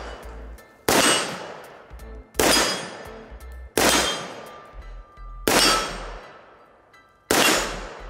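Five single rifle shots, spaced about one and a half to two seconds apart. Each is a sharp crack followed by a long, fading echo.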